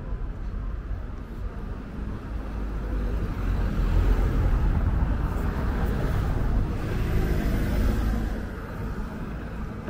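A car passing by, its engine and tyre noise swelling through the middle and fading near the end.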